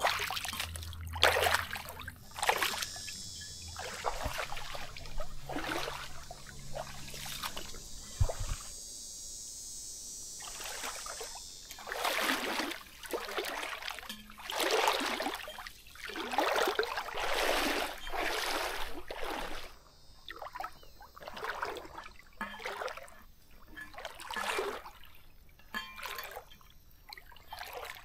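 Footsteps wading through shallow swamp water: a splash and slosh with each stride, about one a second.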